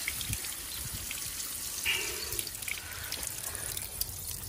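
Tap water from a hose running through a boiler's plate heat exchanger and splashing steadily out onto paving stones, flushing black flakes of sludge out of the blocked plate.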